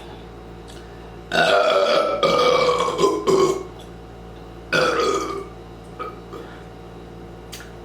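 Deliberate, loud belching brought up by drinking Diet Pepsi. A long drawn-out burp starts about a second in and falls in pitch, then a shorter burp comes about five seconds in.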